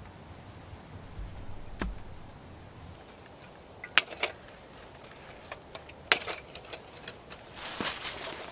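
Metal hurricane lantern being handled: a run of sharp metallic clicks and clinks from its frame and wire guard, starting about four seconds in and coming thicker after six. Before that, a low rumble and a single click.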